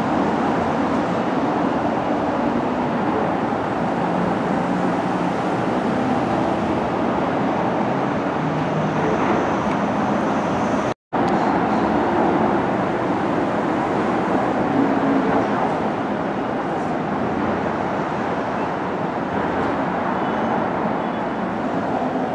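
Steady din of street traffic and distant subway train noise around an elevated station, with a few faint steady whines in it. The sound drops out briefly about eleven seconds in.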